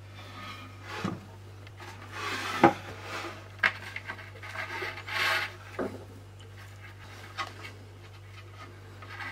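Cord being threaded and drawn through holes drilled in the wooden corner posts of a slatted wooden drawer frame: rubbing swishes of the cord against the wood and scattered light knocks of the wooden frame, the sharpest a little under three seconds in.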